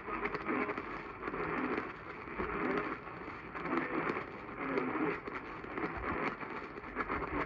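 Broadcast radio reception with hiss and crackle from a weak signal, and a muffled, unintelligible sound that swells and fades about once a second.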